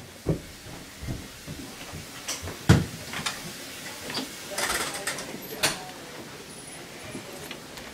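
Scattered knocks and clunks of handling and movement, the loudest a sharp thump about three seconds in.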